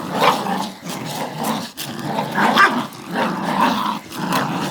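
Dogs growling steadily in play as they tug at a t-shirt between them.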